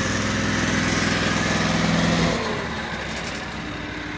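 Mini track loader's 23-horsepower Zongshen gasoline engine running steadily at speed, then dropping back to a lower, quieter run about two seconds in.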